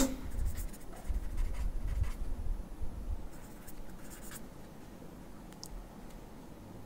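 Pen writing on paper: faint, irregular scratchy strokes, mostly in the first four seconds.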